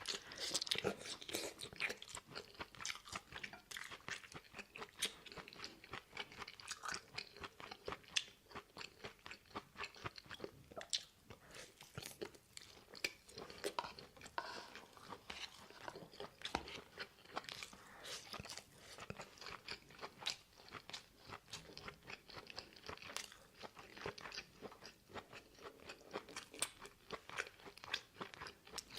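A person chewing stir-fried cauliflower close to the microphone, with frequent small, irregular crunches and wet mouth clicks.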